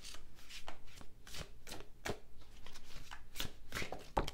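A Thoth tarot deck being shuffled by hand: a run of irregular, crisp card snaps and slides, several a second, with the loudest snap near the end.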